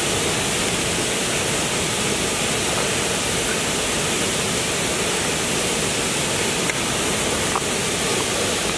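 Wide curtain waterfall pouring onto rocks and a pool: a steady, even rush of falling water.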